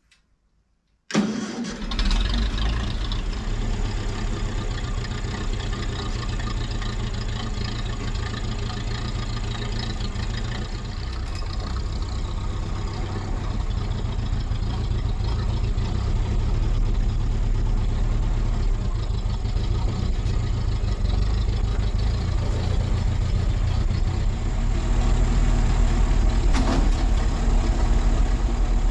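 A vintage TEA Ferguson tractor engine starts suddenly about a second in and then runs steadily, growing a little louder near the end.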